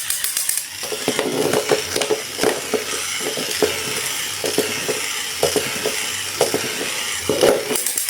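Dense, irregular clicking and rattling of small hard objects being handled.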